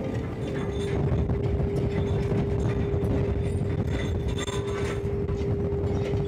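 Trawler deck machinery hauling in the net: the winch and net drum run with a steady whining tone over a low, constant rumble, with light intermittent clatter.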